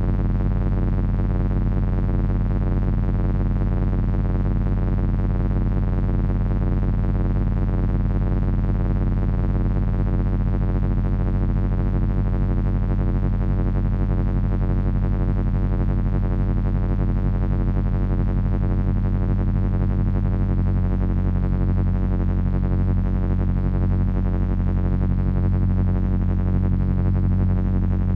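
Heavy electronic drone from three Frequency Analyzer v1 units driven by an HP 200C audio oscillator: a dense, steady stack of low tones with a wavering shimmer above. About two-thirds of the way through, the low notes shift to a new chord.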